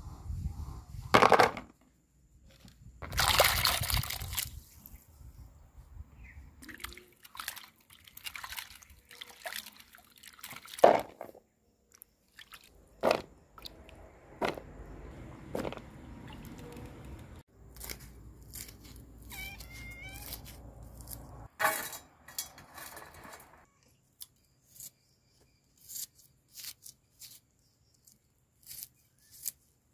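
Hands handling shelled cashew nuts and a bowl: irregular clicks, taps and rustling, with a few sharp louder knocks and some stretches of noisy scraping or splashing.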